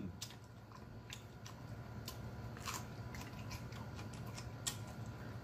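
A person chewing rotisserie chicken and smacking his lips, heard as scattered short wet mouth clicks over a steady low hum.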